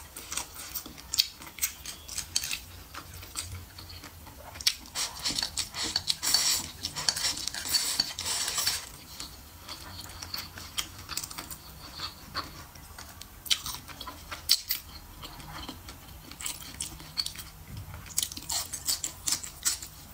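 Close-up eating sounds: wooden chopsticks clicking against a ceramic bowl, with wet chewing and mouth sounds, densest about a third of the way in.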